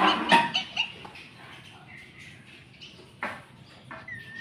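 Ringneck parrot calling: a loud burst of squawks at the start, then fainter chatter and a sharp call about three seconds in.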